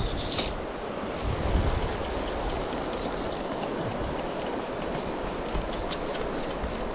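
Steady rush of a shallow, rocky river with wind buffeting the microphone, the low rumble swelling for a moment about one and a half seconds in. A few light ticks sound over it.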